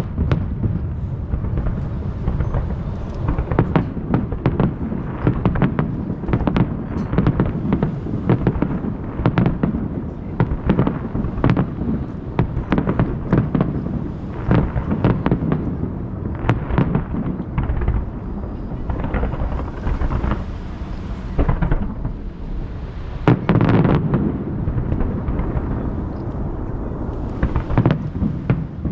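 Aerial fireworks shells bursting in rapid, dense succession, several bangs a second with a deep rumble, their reports echoing off the hills that ring the bay.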